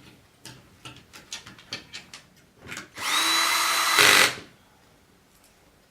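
Several light clicks and knocks of parts being handled, then a power screwdriver running for about a second and a half, driving in a screw to fasten the TV's power supply board back in place.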